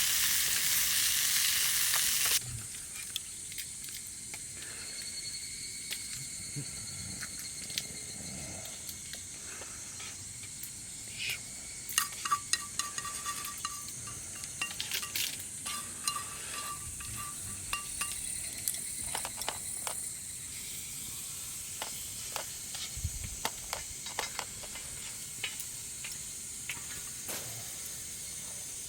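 Food sizzling in a pan for about two seconds, then a sudden change to insects trilling steadily with scattered sharp clicks and pops throughout.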